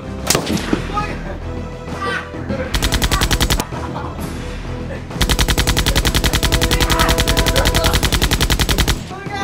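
Automatic gunfire, likely an edited-in sound effect rather than the blasters' own noise: a single shot just after the start, a short rapid burst about three seconds in, and a long burst of about four seconds from about five seconds in, at roughly a dozen shots a second, over background music.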